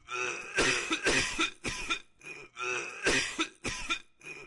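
A character's coughing sound effect: a short run of coughs that repeats the same way about every two and a half seconds.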